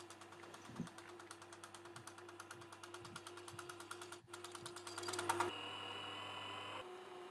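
Bicycle freewheel ratchet ticking rapidly and evenly as the bike coasts, over a steady faint hum. About five and a half seconds in, a steady higher tone joins for over a second and then cuts off.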